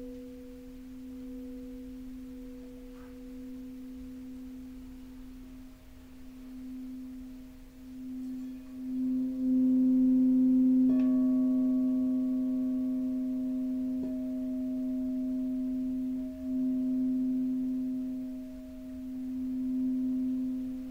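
Crystal singing bowl ringing with a steady, nearly pure tone. More bowl tones layer in about six and about ten seconds in, and the sound swells louder, then eases off near the end.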